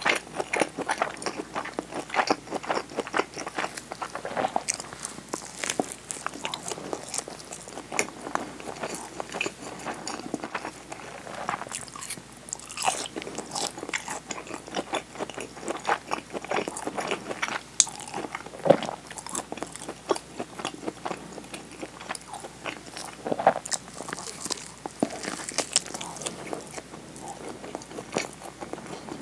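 Close-miked chewing and biting of a nori-wrapped rice ball: a dense, irregular run of small wet mouth clicks and soft crunches.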